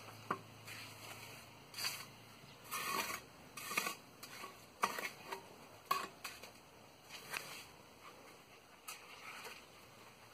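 Wet cement being worked by hand with a plastic form: irregular short scrapes and taps, about one a second, growing sparser and fainter toward the end.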